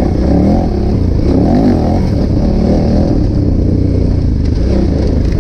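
KTM 990 Adventure's V-twin engine under load while riding off-road through sand, the revs rising and falling repeatedly.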